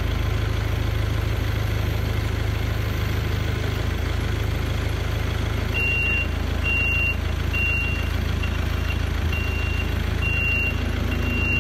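Merlo telehandler's diesel engine running steadily as its boom lifts a load. About six seconds in its warning beeper starts, a steady high beep repeating about once a second.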